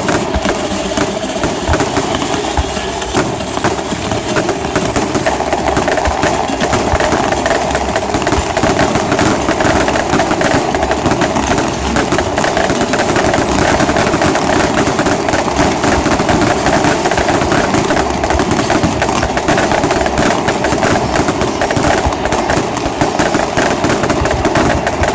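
Fireworks going off in rapid, unbroken succession: a dense crackle of many sharp bangs, loud and steady.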